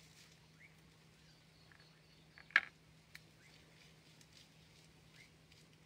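Faint sticky dabbing of a foam paint brush on bubble wrap, with small ticks and one sharp click about two and a half seconds in, over a low steady hum.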